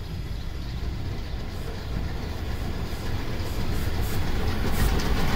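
Metre-gauge steam locomotive approaching with a train, its exhaust beats growing louder and closer together over a low rumble of the running gear as it nears.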